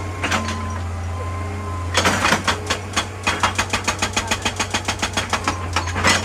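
Excavator's diesel engine running steadily with a single sharp knock early on. About two seconds in, a hydraulic rock breaker starts hammering rock in a fast, even rhythm of about six blows a second.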